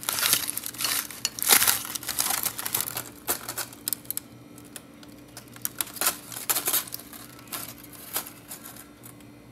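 Aluminium foil crinkling as it is peeled off a baking dish: dense, loud crackling over the first three seconds or so, then a few scattered crinkles and clicks around six seconds in.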